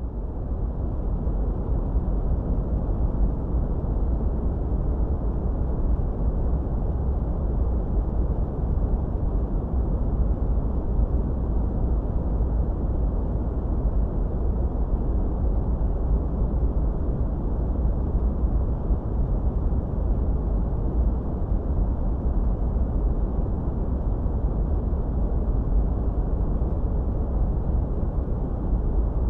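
Steady, unchanging white-noise track filtered deep and muffled, with no treble: a low rushing hiss weighted toward the bass.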